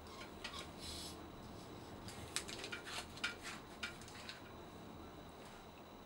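Hair rustling as it is handled around a Hot Tools curling iron. About two seconds in comes a quick run of small metallic clicks and clinks as the iron's spring clamp is worked.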